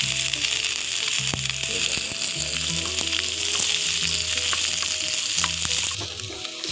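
Freshly added sliced onions sizzling in hot coconut oil in a frying pan, stirred with a spatula that clicks against the pan a few times. The sizzle eases slightly near the end.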